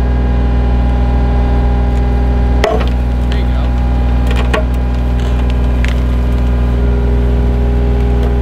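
John Deere 35G mini excavator's diesel engine running steadily while its claw wrenches at a small cedar tree, the wood cracking and snapping several times, loudest about a third of the way in.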